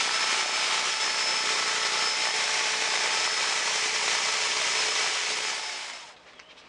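Leaf blower running at full power, with a flapping rubber-whip attachment on its nozzle blasting against house siding: a steady, loud rush of air with a few faint steady tones in it. It dies away about six seconds in, leaving a few faint clicks.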